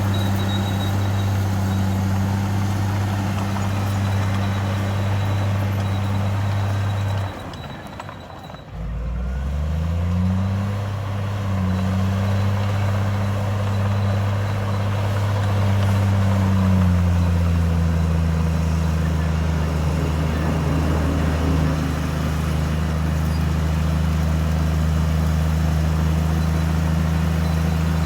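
Heavy diesel earthmoving engine running steadily at a low pitch. About a quarter of the way in the sound drops away briefly, then comes back with the engine revving up. A little past halfway the engine settles to a slightly lower pitch and runs on.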